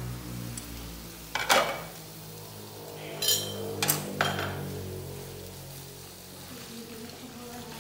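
Kitchenware clattering: a glass pot lid and cookware knock and clink against the stove top, four sharp knocks between about one and a half and four seconds in, one of them ringing.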